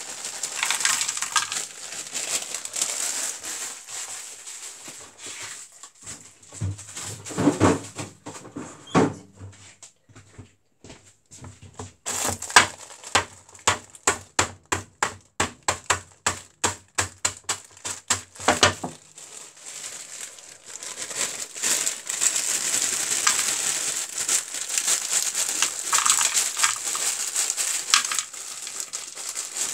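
Chopped onions sizzling in a frying pan, with plastic-bag crinkling. In the middle comes a run of about twenty sharp knocks, roughly three a second, lasting several seconds.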